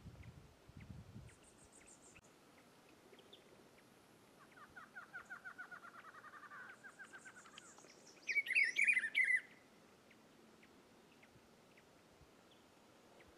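Rufous-browed peppershrike singing: a short, loud, varied whistled phrase a little past halfway through. A quieter rapid trill of many quick notes comes before it, and faint high thin chirps are heard early on.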